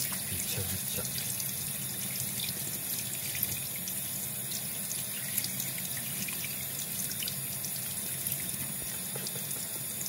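Kitchen faucet running steadily into a stainless-steel sink, the stream falling over a bathing cockatiel's spread wings, with a few brief sharp splashes.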